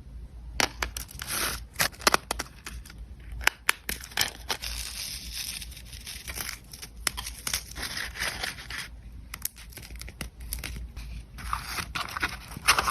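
Packaging material being handled: crinkling and rustling with many sharp clicks and brief tearing sounds, busiest in the middle and again near the end.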